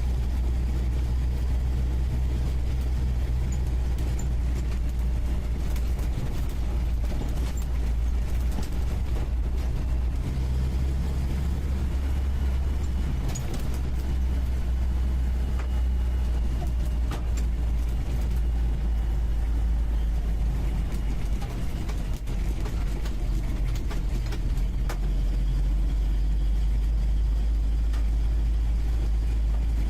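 UAZ 469B four-wheel drive's engine running steadily on the move, heard from the passenger seat inside the cab, with scattered short knocks.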